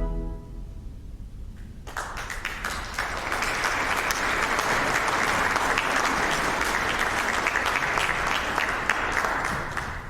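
Congregation applauding, starting about two seconds in and tailing off near the end.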